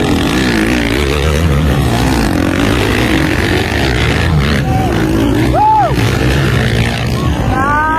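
Motocross dirt bike engines racing on the track, their revs rising and falling as the riders work the throttle.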